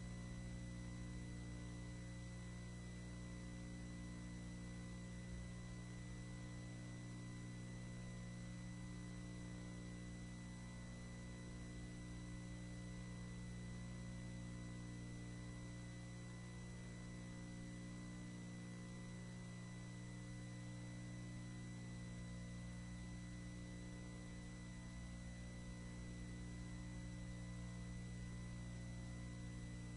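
Steady electrical hum with a faint high whine over low room tone; nothing else happens.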